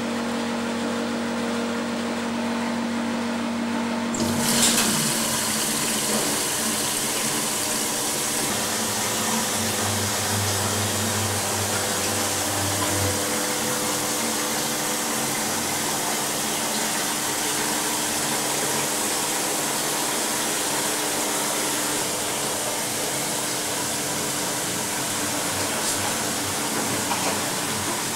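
Supertatramat automatic washing machine in operation: a steady motor hum, then about four seconds in a rush of water through the machine starts abruptly and runs on steadily.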